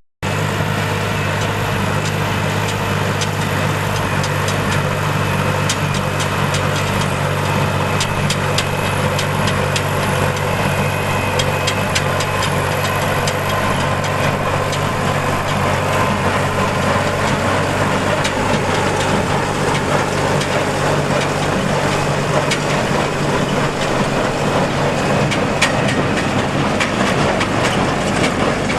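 Tractor engine running steadily while driving a Massey Ferguson 1837 inline small square baler, with sharp clicks and knocks from the baler's mechanism as it works.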